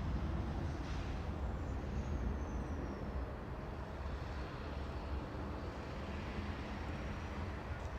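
Jet airliner's engines heard as a steady low rumble, with a faint high whine falling slowly in pitch over the first few seconds.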